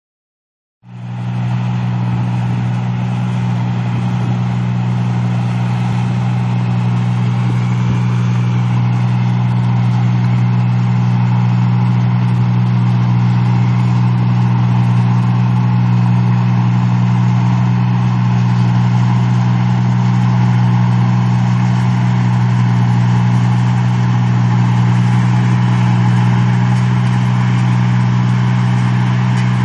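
A rice machine running steadily with a strong, unchanging low hum, starting up about a second in.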